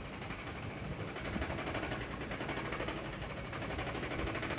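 A steady engine running, with a fast, fine pulsing.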